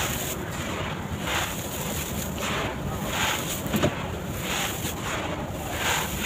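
Sand-cement bars crumbling in a series of short crunches, roughly two a second, with one sharper crack near the middle.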